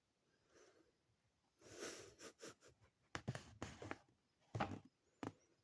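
Handling noise: a rustle about two seconds in, then a series of short knocks and scrapes, as of objects and clothing being moved about.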